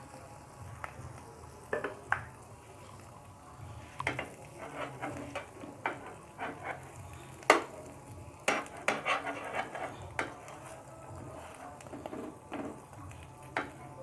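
Margarine-buttered bread toasting in a small nonstick pan, with a faint sizzle under irregular taps, clinks and short scrapes of a utensil against the pan and bread.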